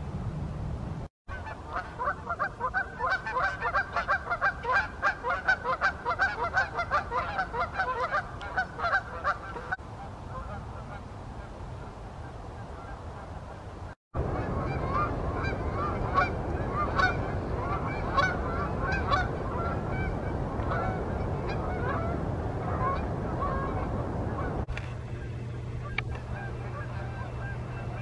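A flock of Canada geese honking in flight, many overlapping honks at once. The calling is thickest in the first half, thins out around ten seconds in, and picks up again after a short break.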